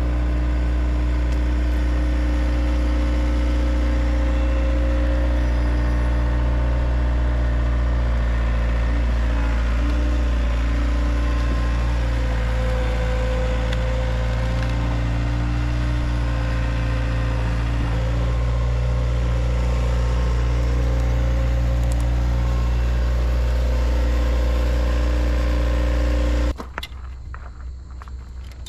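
Gehl CTL60 compact track loader's diesel engine running steadily at a constant speed, cutting off abruptly about 26 seconds in. A few light metallic clicks follow near the end.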